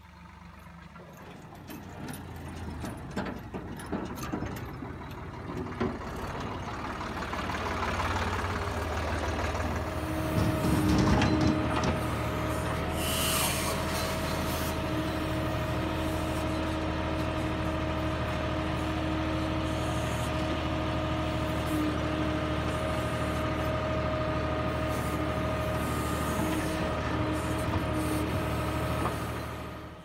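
Tractor-mounted backhoe working: the tractor's diesel engine running hard under load with a steady whine from the hydraulics as the boom and bucket are worked by the control levers. The sound builds over the first third, then holds steady, with a brief hiss about a third of the way in, and cuts off just before the end.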